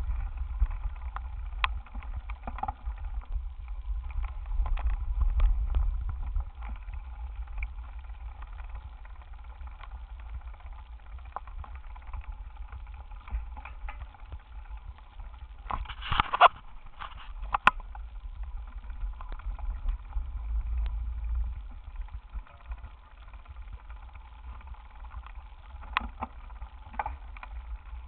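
Low wind rumble and handling noise on a handlebar-mounted bicycle camera while riding, with sharp knocks and rattles from the mount over bumps, a cluster of them about halfway through and a couple more near the end.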